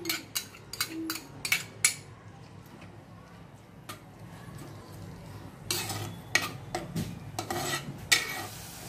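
Steel spoon stirring chopped onion in hot oil in a clay pot, clinking and scraping against the pot. A quick run of sharp clinks in the first two seconds, a quieter stretch, then more scraping and clinks near the end.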